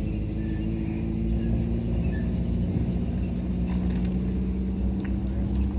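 Sikorsky UH-60A Black Hawk running on the ground with its main rotor turning slowly: a steady low rumble with a constant hum.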